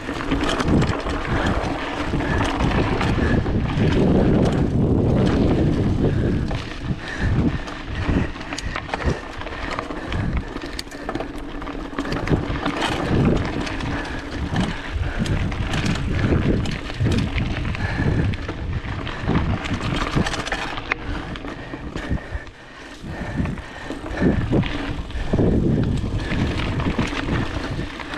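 Specialized Rockhopper 29er mountain bike ridden fast over a dirt trail: tyre noise and wind on the microphone, with frequent knocks and rattles of the bike over bumps.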